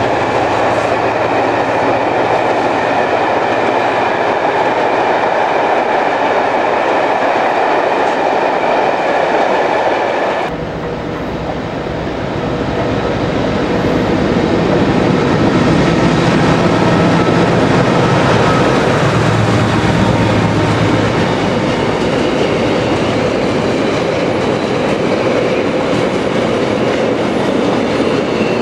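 A train passing close by on the line, a loud, steady rolling rumble of wheels on rails. About ten seconds in, the sound changes abruptly to another passing train, with a deeper engine-like hum underneath.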